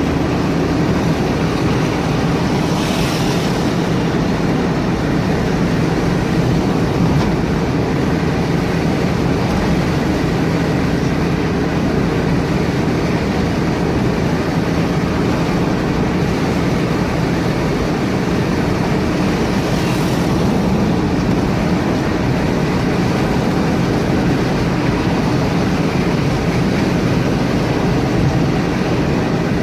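Steady rumbling noise of a moving vehicle, with two brief hissing swells, one about three seconds in and one about twenty seconds in.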